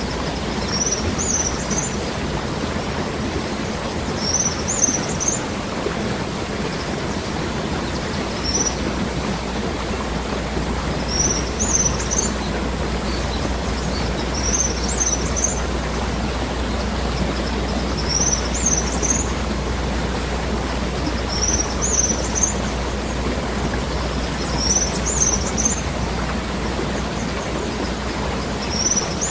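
Waterfall, water pouring steadily, with a bird repeating a short high call about every three to four seconds.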